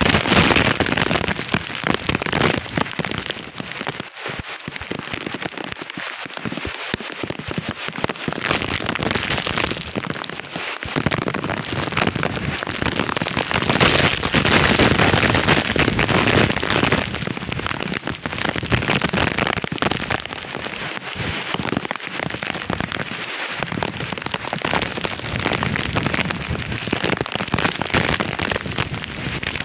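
Typhoon rain pouring down while strong wind gusts thrash the trees: a dense, continuous rush that swells louder with the gusts, most strongly about halfway through.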